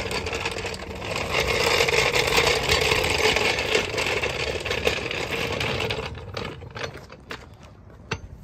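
Rapid mechanical clatter over a steady hum, thinning to scattered metallic clicks about six seconds in.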